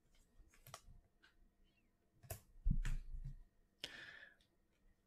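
Trading cards being handled and set down on a table: a few soft clicks and taps, a low thump about two and a half seconds in, and a brief sliding rustle near four seconds.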